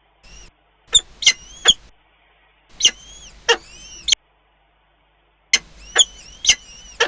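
Birds at a nest giving short, sharp, high calls in three quick bursts of two to four calls each.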